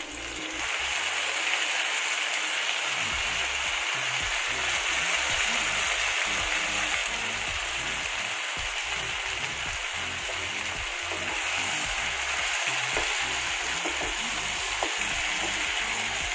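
Salted brinjal (eggplant) pieces sizzling in hot oil in a frying pan with potatoes; the sizzle jumps up about half a second in as the wet pieces go into the oil, then carries on as a steady hiss.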